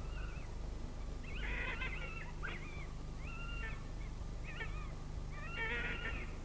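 Red fox courtship calls: about half a dozen short, high, wavering calls at irregular intervals, over a steady low hum.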